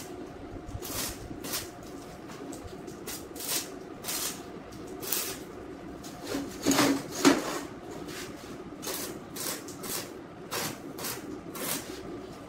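MIG welder tack-welding the corners of a steel square-tube frame, giving short bursts of crackling hiss every half second or so over a steady hum. About halfway through comes a louder clank of the steel frame being handled.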